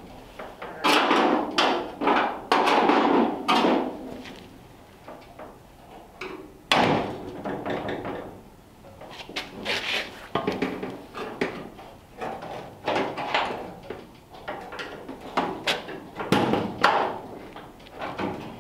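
Irregular clunks, knocks and rattles of a 1934 Ford cabriolet's steel body panels being shifted and fitted by hand. The loudest clatter comes in the first few seconds, with another sharp knock a few seconds later and more clunks near the end.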